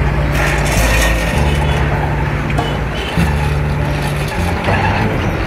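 Diesel engine of a palm-oil truck running at low speed as it drives off a barge over steel ramp plates, with occasional short knocks.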